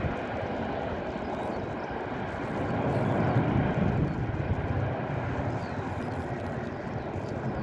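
Jet engine noise from an Airbus A321neo's Pratt & Whitney PW1100G geared turbofans at takeoff thrust as the airliner climbs away. It is a steady rushing rumble that swells about three seconds in and then eases.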